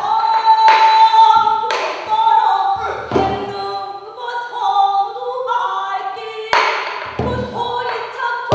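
Pansori singing: one voice holding and bending a long melodic line with a wide, shaking vibrato, punctuated by a few sharp strokes of the buk barrel drum.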